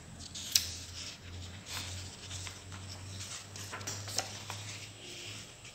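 Paper rustling and crackling as a notebook page is turned over by hand, with a sharp crackle about half a second in and another near four seconds.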